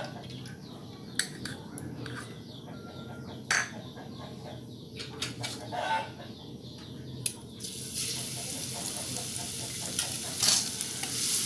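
Utensils clicking and knocking against a pan and bowls, then about eight seconds in a steady sizzle starts as garlic goes into the hot oil in the pan.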